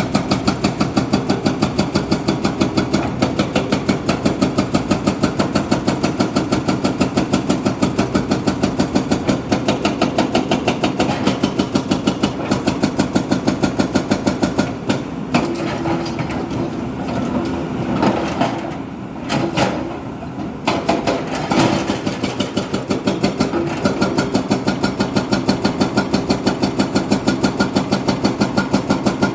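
Diesel engine of a backhoe loader running with a steady, regular throb of about three beats a second. Around the middle the throb gives way for several seconds to irregular knocks and clatter, then returns.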